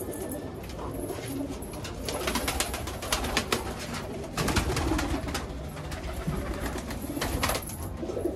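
Domestic pigeons cooing in a crowded loft, a continual low murmur, with many short clicks and rustles from birds and feet moving about.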